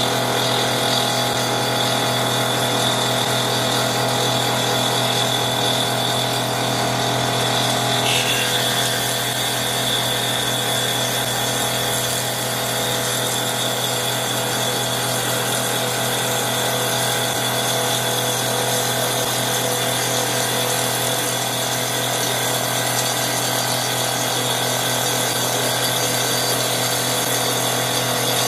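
CNC wood lathe turning a wooden baseball bat with a spinning circular saw blade as its cutter: the lathe spindle and blade motor run steadily while the blade cuts wood along the bat. A continuous mechanical whine and hum, shifting slightly about eight seconds in.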